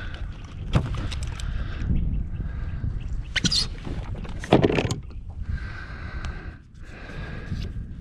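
Wind rumbling on the microphone, with several sharp clicks and knocks, the loudest about four and a half seconds in, and short stretches of a steady whir.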